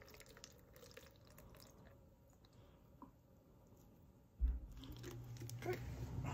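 Water poured from a plastic water bottle into a small toy potion bottle, a faint trickle with small drips. About four seconds in there is a sudden low thump, followed by a steady low hum.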